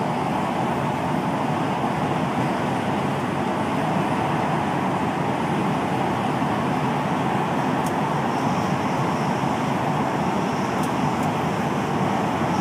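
Gautrain Bombardier Electrostar electric train running through a tunnel, heard from inside the driver's cab: a steady, even rumble of the train in motion.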